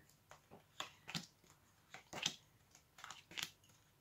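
A deck of fortune-telling cards being shuffled and dealt out onto a cloth-covered table: a string of soft, irregular snaps and clicks, the strongest about two and three and a half seconds in.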